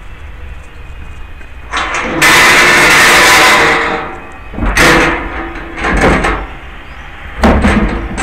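Metal doors of a bin enclosure being opened and a plastic wheelie bin handled inside it: a long loud scraping rattle about two seconds in, then three shorter knocks and scrapes.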